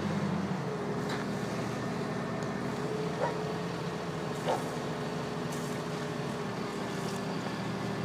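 A motor running steadily, a hum with one held tone over an even background noise.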